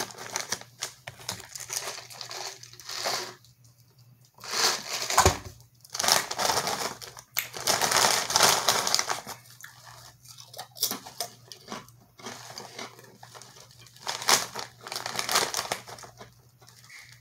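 Crinkly potato-chip bag being shaken and rummaged through by hand, in irregular bursts of crackling.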